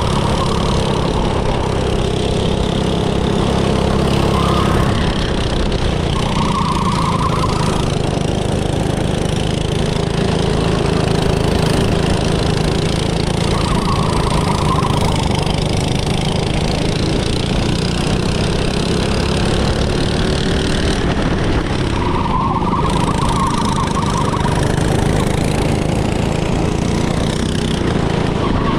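Small petrol go-kart engine running steadily, with a higher whine that comes and goes every few seconds.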